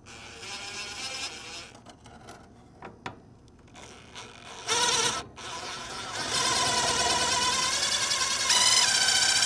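Cordless drill-driver whining as it drives a screw through a run capacitor's mounting strap into the AC condenser's sheet-metal back plate. It runs briefly at the start, gives a short burst about halfway, then runs steadily and louder for the last few seconds, with a step in pitch near the end.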